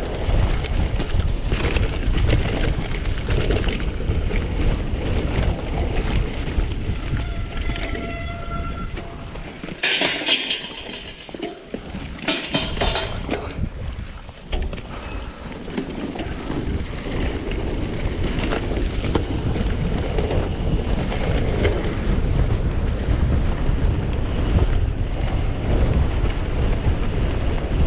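A mountain bike descending a rough trail: wind rushing over the camera's microphone and the bike rattling over the ground, with a calmer stretch about ten seconds in where a few short, sharp hissing sounds stand out.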